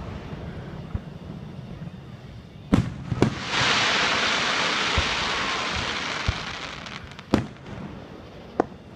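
Fireworks display: two sharp bangs of shells bursting about three seconds in, then a long crackling hiss that slowly fades, and two more bangs near the end.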